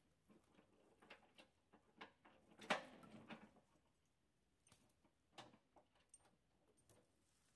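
Faint, irregular knocks and rustles of wood and dry leaves being handled by hand, with one louder knock followed by a short rustle about three seconds in.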